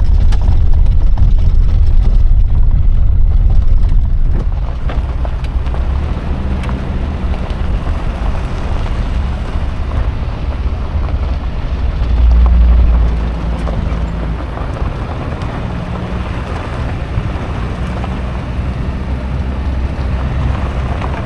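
Motor vehicle driving: a steady low engine rumble with wind and road noise. It is louder for the first few seconds and swells briefly about twelve seconds in.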